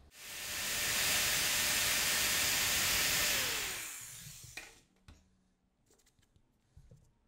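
Electric drill running for about four seconds as it bores a hole through the plastic centre hub of a CD, then winding down with a falling whine once the trigger is released. A few light handling clicks follow.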